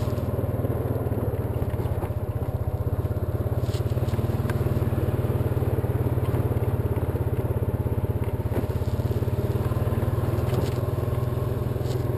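Honda ATV engine running steadily as it rides along a dirt trail, with a few short clicks and knocks from the trail and brush.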